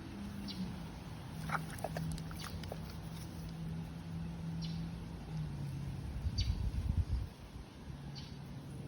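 Animal sounds over a steady low hum: a few short high chirps early, then a cluster of louder low noises about six to seven seconds in.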